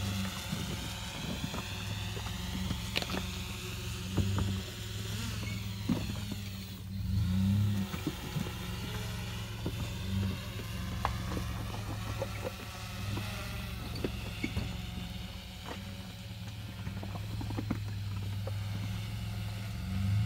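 Lifted Chevrolet Colorado ZR2 pickup's engine running at low revs as the truck crawls slowly over limestone rocks, the revs rising briefly about a third of the way in and again near the end. Scattered sharp cracks and clicks run over the engine sound.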